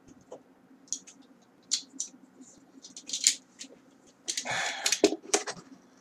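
A folding knife and a cardboard mailer being handled: scattered light clicks and scrapes, then a short run of scraping and rustling of the cardboard about four seconds in.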